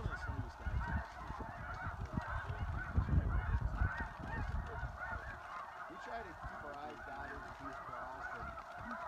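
A dense, continuous chorus of snow goose calls: many overlapping high, yelping honks. A low rumble sits under the calls for the first five seconds or so, then fades out.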